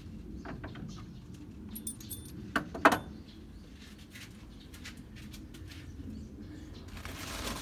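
Metal clinking and light clattering as the old valve spring and the spring compressor tool are handled, with a few small ringing clinks about two seconds in and the loudest sharp metal-on-metal clink just before three seconds. A rustle near the end.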